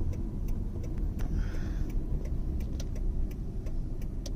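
Car running slowly, heard from inside the cabin: a steady low rumble of engine and tyres, with faint light ticks scattered through it.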